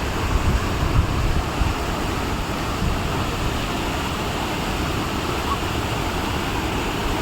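Steady rush of a large waterfall's falling water, with an uneven low rumble of wind on the microphone.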